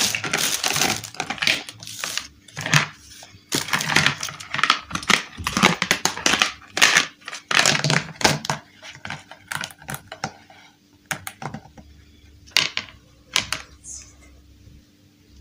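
Hard plastic toy building pieces clattering and knocking as they are handled and set down on a table, mixed with the crinkle of a plastic bag. The knocks come thick and fast for the first ten seconds or so, then thin out to a few separate clicks.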